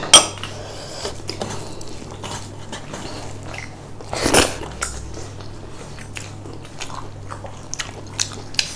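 Close-up eating sounds: chewing and small wet mouth clicks, with a louder bite about four seconds in as a handful of rice and curry goes into the mouth. A steady low hum runs underneath.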